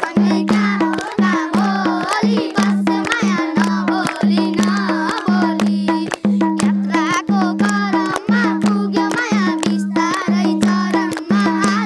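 Madal, the Nepali double-headed hand drum, played with both hands in a steady folk rhythm, its low ringing strokes repeating a couple of times a second, with a boy's voice singing a Nepali folk song over it.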